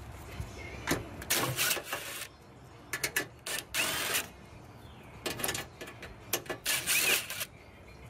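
DeWalt 20-volt cordless driver backing screws out of a sheet-metal frame, running in several short bursts, some with a rising motor whine.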